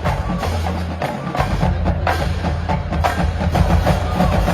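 Marching band playing, with sharp percussion strokes on a steady beat over sustained low brass.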